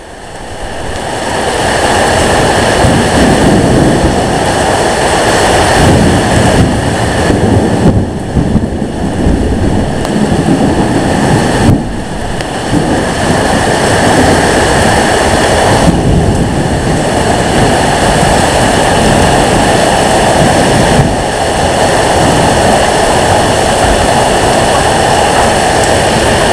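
Strong thunderstorm wind and heavy rain blowing against the microphone in a loud, steady rush. It swells up over the first couple of seconds and then holds, with a few brief dips.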